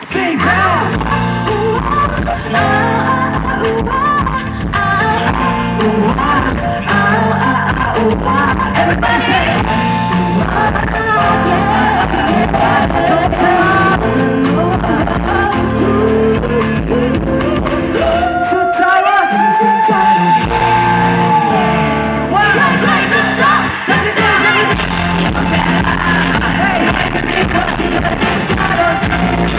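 Live pop song played loud through a stage PA: a male singer sings into a handheld microphone over a band with keyboards, bass and drums. About two-thirds of the way through, the bass drops out for a moment and a line rises into a long held note before the full band comes back in.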